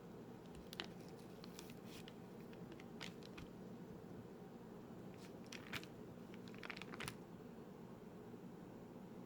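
Faint, scattered clicks and crinkling from hands working in a kitchen, over a low steady hum. The clicks come in small clusters, the loudest a little past halfway.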